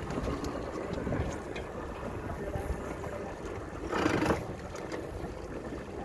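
Wind buffeting the microphone over open water, a steady low rumble of noise, with a short louder rush of noise about four seconds in.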